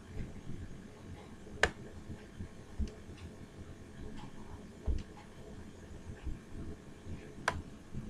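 Two sharp computer mouse clicks, about six seconds apart, over a low room hum with a few soft low thumps and fainter ticks.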